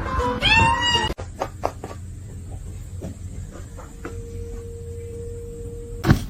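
A cat meowing once: a single call that rises and falls in pitch, about half a second in. After it comes a quieter stretch with scattered light taps.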